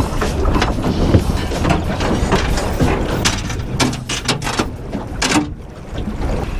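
Boat anchor chain and rope rattling and knocking against the bow as the anchor is let down. A run of sharp clanks comes about three to five seconds in, over a steady low rush.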